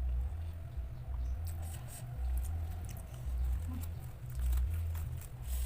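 Close-miked chewing of a mouthful of raw young mango leaf shoots: low thuds at an even pace of about two bites a second, with crisp wet clicks from about a second and a half in.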